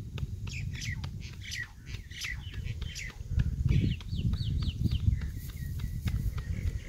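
Roti dough slapped back and forth between the palms by hand, a steady run of soft slaps about three or four a second. Birds chirp over it.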